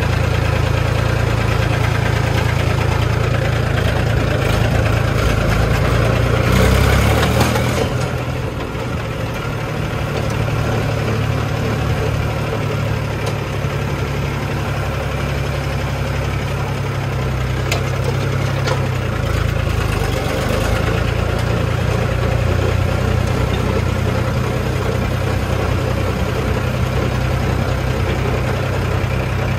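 Mahindra tractor's diesel engine running steadily at low speed as the tractor is driven slowly, with a short louder surge about seven seconds in, after which the engine note settles slightly lower.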